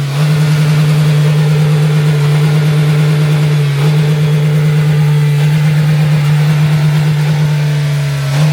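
Engine held at steady revs, one constant droning note with a slight wobble about four seconds in.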